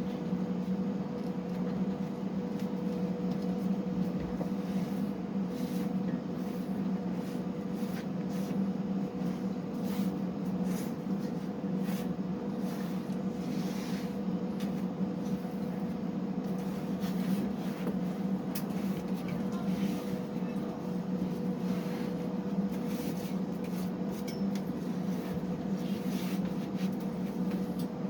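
Steady low mechanical hum, unchanging throughout, with a few light clicks and taps scattered over it.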